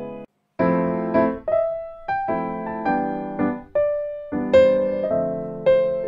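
Background music: a piano-like keyboard playing chords and a simple melody, notes struck about twice a second and fading between strikes, with a brief break just after the start.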